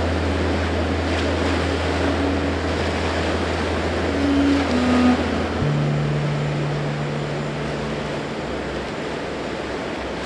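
Steady rush of moving water and surf, with a held low synth drone underneath that shifts to a higher note about halfway through, and a few short higher notes about four seconds in.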